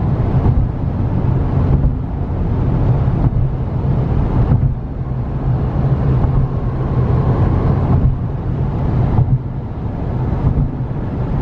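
Car driving at highway speed in strong wind: steady road rumble, with gusts of wind buffeting the microphone that swell and drop every second or two.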